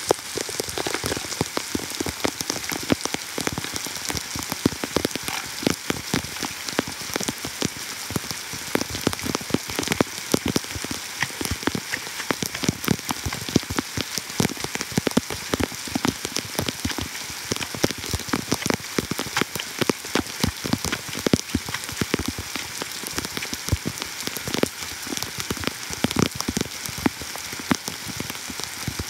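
Heavy rain falling on flooded ground and puddles: a steady, dense patter of many drop impacts.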